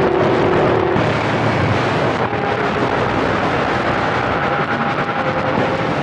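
Cobra CB radio receiving an open channel: steady hiss of band static from its speaker with faint steady whistles in it, one stopping about a second in and a higher one coming in later.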